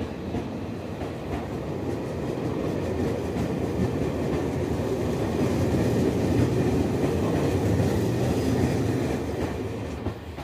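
Red-and-white electric express train pulling out and rolling past close by at low speed, its wheels clacking over the rail joints. The rumble builds, then eases off near the end.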